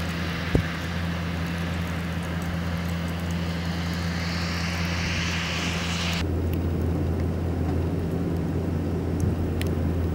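Steady low engine drone with a rushing, tyre-on-slush noise that swells over a few seconds, then cuts off abruptly about six seconds in, leaving the low drone. A single sharp click comes just after the start.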